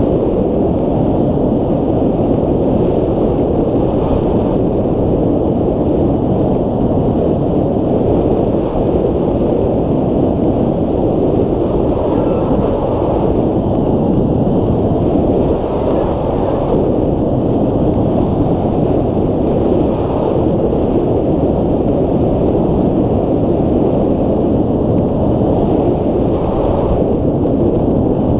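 Wind rushing over the microphone of a camera mounted on a hang glider's wing in flight: a steady, heavy wind noise that stays at the same level throughout.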